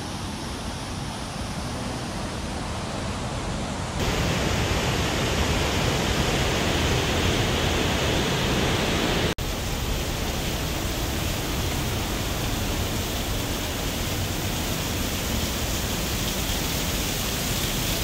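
The Pailón del Diablo waterfall, a big high fall in a river gorge, rushing steadily in a dense, even roar of falling water. It grows louder about four seconds in and drops out for an instant about nine seconds in.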